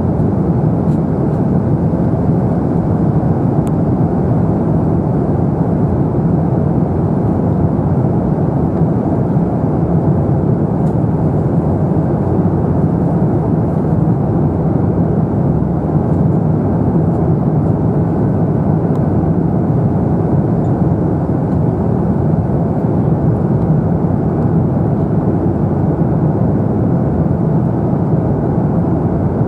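Steady cabin noise inside an Airbus A350-900 in flight, heard from a seat by the wing: an even rush of airflow mixed with the sound of its Rolls-Royce Trent XWB engines, unchanging throughout.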